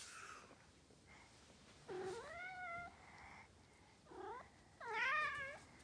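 Norwegian Forest Cat meowing three times: a long call that rises and then holds, a short one, and a louder one near the end.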